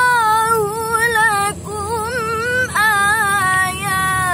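A woman's solo voice reciting the Qur'an in melodic tilawah style, holding long ornamented notes that waver in pitch. It breaks off briefly twice, about one and a half seconds in and again near three seconds, each time starting a new phrase.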